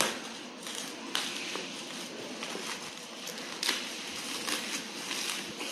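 Plastic bubble wrap rustling and crackling as it is slit with a small knife and pulled open, with scattered sharp crinkles.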